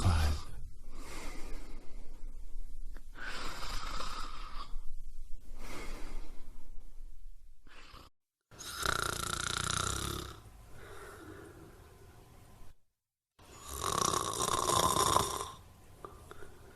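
A sleeping person snoring, one snore every few seconds, with the loudest snores in the second half. The sound drops to complete silence twice for a moment, where separate snoring clips are joined.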